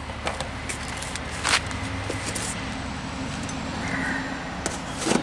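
A steady low mechanical hum, like a motor running, with a few short knocks and clicks over it. The sharpest knock comes about a second and a half in and another near the end.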